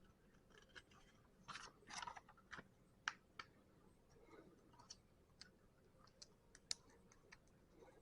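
Lego plastic pieces being handled during a build: faint, scattered clicks and brief rattles at irregular intervals.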